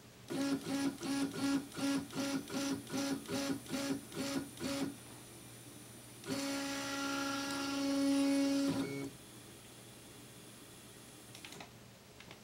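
NEMA 17 stepper motor (Kysan 1124090, 1.8°) driving a 3D printer's x-axis carriage on a GT2 belt, under a Pololu A4988 driver at 1/16 microstepping. First come about ten short whining moves in quick succession, roughly two a second, as the axis is jogged. After a pause comes one steady whine of about two and a half seconds as the axis homes, stopping abruptly.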